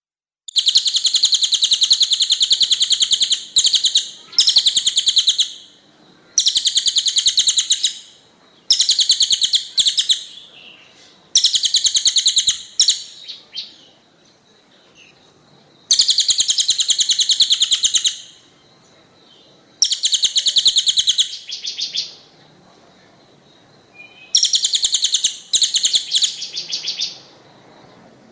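A songbird singing a harsh, rapid, rattling song in phrases of about one to three seconds with short pauses between them, high-pitched and densely packed, the dense, rough song used as a tutor recording (masteran) for training songbirds.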